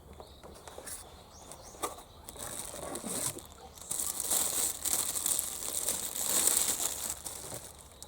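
Rustling, crinkling noise with a few light clicks, swelling about two seconds in and fading near the end.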